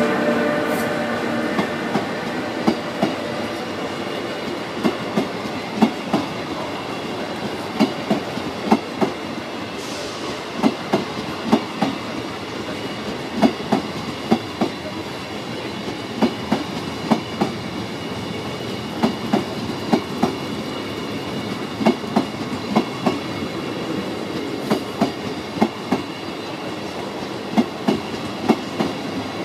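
Venice Simplon Orient Express coaches rolling past on the rails, their wheels knocking over the rail joints in a steady clickety-clack. The knocks come in pairs about once a second over a continuous rolling rumble.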